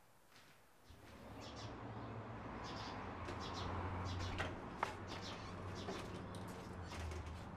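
Outdoor ambience of small birds chirping in short high bursts over a low steady hum, with a sharp click about five seconds in.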